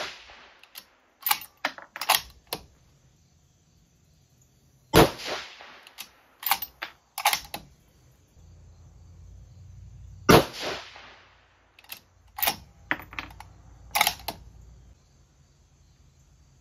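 Two rifle shots from a 6mm BR bolt-action rifle, about five seconds apart, each ringing out briefly. After each shot come a few quieter metallic clicks as the bolt is cycled and the spent case is ejected for the next round of the group.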